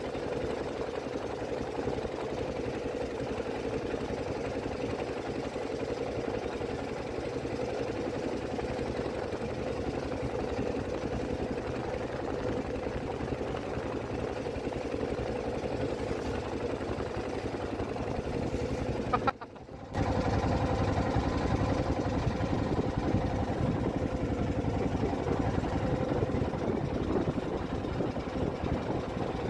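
Small motor of a ketek river boat running steadily. The sound breaks off for about half a second roughly two-thirds of the way through, then resumes slightly louder.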